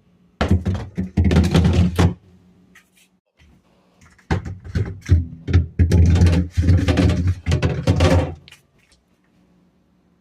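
Thunks and clattering from objects being handled, in two busy stretches of several seconds each, with a faint steady hum in the pauses.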